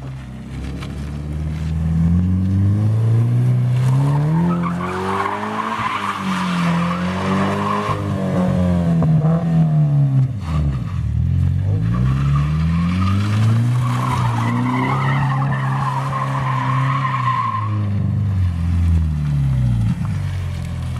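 Car engine revving up and down in repeated waves while a car does donuts, with two long spells of tire squeal as the tires break loose.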